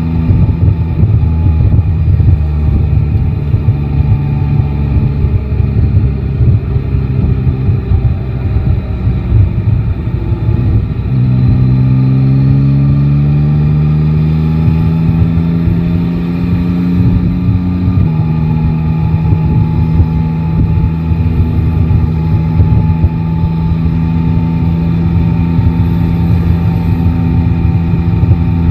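Inline-three motorcycle engine running under way through city traffic, over a rough low rumble. About eleven seconds in, its pitch climbs smoothly for some seven seconds as the bike accelerates, then it holds a steady note.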